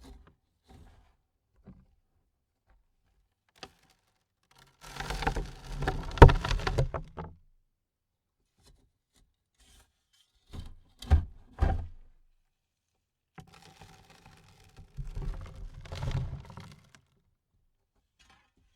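Dirt landing on a coffin lid in three separate loads, each a thud followed by soil pattering and scattering across the lid. The first load is the loudest, the second comes as a few sharp hits, and the third is a longer pattering spill.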